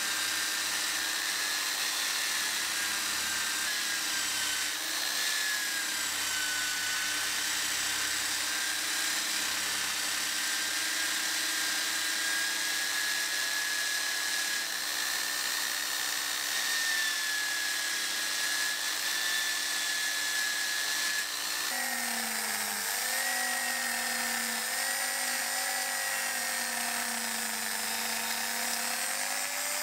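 Drill press spinning a felt polishing wheel against an aluminium drill housing, a steady motor whine. About 22 s in it changes to a rotary tool running a small felt polishing bob against the housing, whose whine wavers slightly in pitch.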